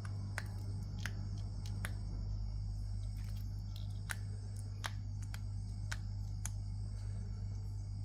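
Baby macaque chewing a cicada: crisp crunching clicks at an irregular pace, one or two a second, over a steady low hum and a steady high-pitched whine.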